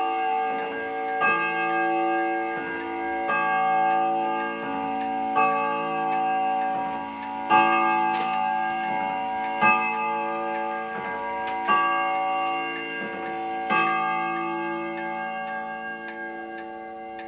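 Black Forest eight-day spring-driven wall clock striking the hour on its bim-bam gongs, striking ten o'clock. A stroke comes about every two seconds, each ringing on in a sustained tone, and the pendulum ticks underneath. After the last stroke near the end, the ringing dies away.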